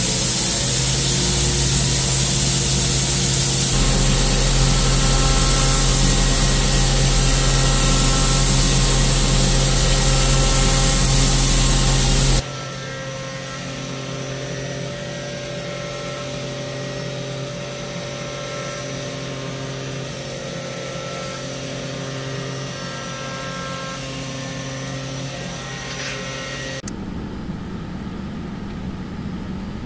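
Hurco VM5i CNC mill's spindle running a 2.5 mm two-flute ball endmill at 8000 rpm in light back-and-forth passes across 316 stainless steel, under a loud steady hiss of compressed-air blast from the nozzle, with a steady hum and a faint tone that comes and goes with the passes. The sound drops abruptly about twelve seconds in, and the hiss cuts out near the end.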